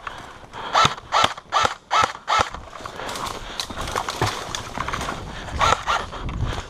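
Running footsteps with the rattle of carried gear: a quick series of about five strides in the first couple of seconds, then continued irregular clattering and a few more heavy steps near the end.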